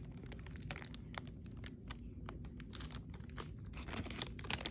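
Packaging being handled and unwrapped as a small chainsaw is lifted out of its box: faint, scattered crinkles and light clicks.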